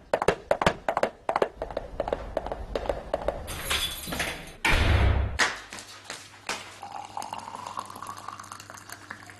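A quick run of hard knocks and clinks, then two louder rushing noises with a low rumble about four and five seconds in, followed by scattered lighter knocks.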